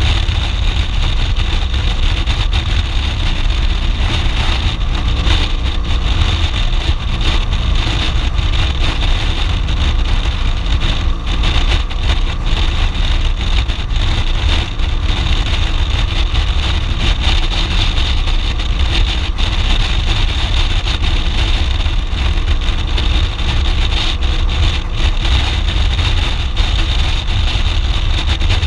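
BMW R1200GS Adventure's boxer twin running steadily at cruising speed under a heavy, buffeting wind rush on the bike-mounted microphone.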